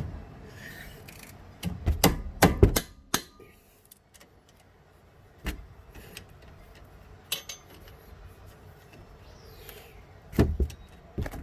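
Sharp metallic knocks as a 14 mm spanner on a brake caliper bolt is struck by hand to break the bolt loose: a quick cluster about two seconds in, a few single knocks after, and another pair near the end.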